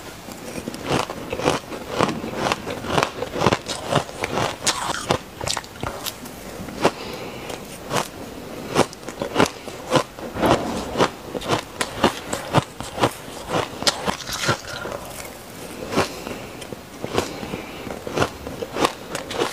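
Crunching and chewing of a mouthful of fine, powdery pink frozen ice, picked up close by a clip-on microphone. Sharp crunches come irregularly, about two a second.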